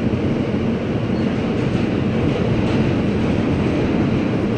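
Steady rumble of wheels on rail heard from inside an R160A subway car running between stations, loudest in the low range.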